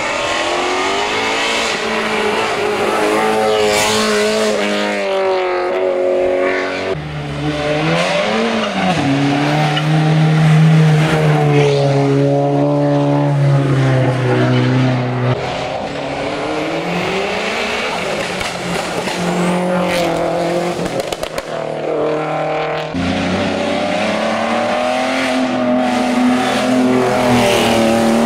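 Race car engine at high revs, climbing in pitch through the gears with sharp drops at each shift, and easing off and picking up again through corners.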